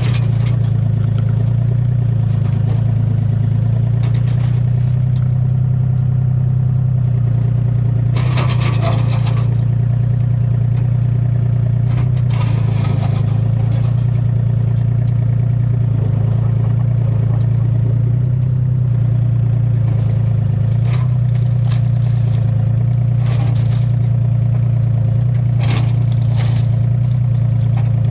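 Excavator's diesel engine running steadily under load, with intermittent scraping and clattering as the bucket breaks out the cesspool's dry-stacked cinder block.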